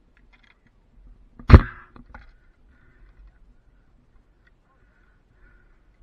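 A single loud knock about a second and a half in, followed by a few light clicks and rattles.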